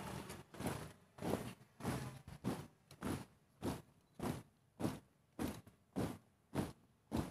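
Marching footsteps of a drill troop stepping in unison, boots striking gravel about every 0.6 seconds in a steady marching cadence.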